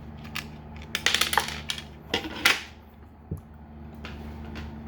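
Small hard plastic toy parts clicking and clattering as a weapon accessory for a transforming robot figure is handled, with a quick flurry of clicks about a second in and a single knock a little later.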